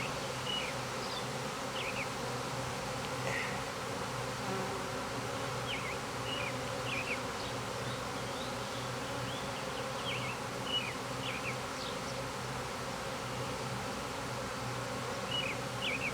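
A swarm of honeybees buzzing: a steady hum of many bees in the air, with short faint chirps now and then.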